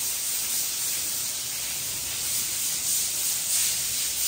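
Water from a garden hose spraying onto a wet concrete floor: a steady hiss and splatter.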